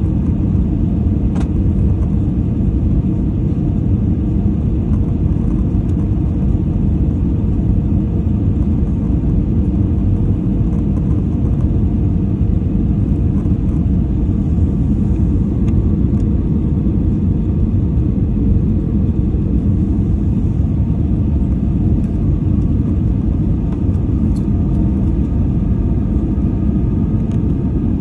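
Jet airliner cabin noise on final approach: a steady low rumble of engines and rushing air, with a faint steady hum running under it.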